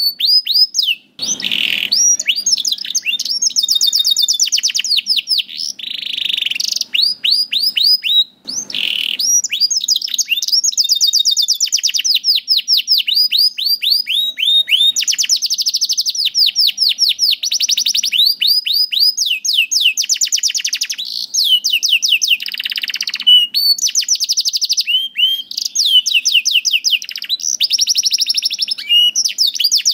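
Canary singing a long, continuous song of fast trills, each a rapid run of repeated high sweeping notes, switching to a new trill every second or two, with a couple of brief harsh notes early on.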